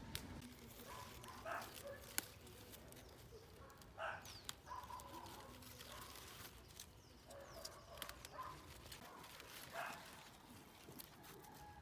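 Faint outdoor ambience with a few short animal calls, spaced several seconds apart, and scattered sharp clicks.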